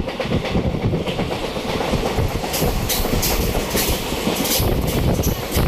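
Passenger train running along the track, heard from inside the coach at a barred window: a steady rumble of wheels on rails with wind rush, joined about halfway through by a run of sharp clacks and rattles.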